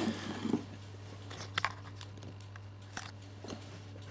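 Hand handling a plastic battery charger on carpet: a brief scuffle, then a few faint separate clicks, over a steady low electrical hum.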